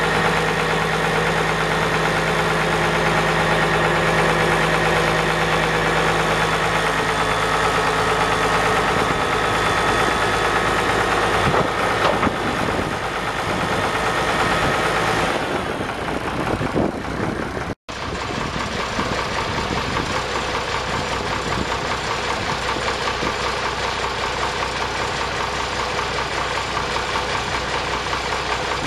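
International DT466 7.6-litre inline-six diesel engine of a 1978 International F2554 dump truck idling steadily. The sound breaks off for an instant a little past halfway, then carries on rougher.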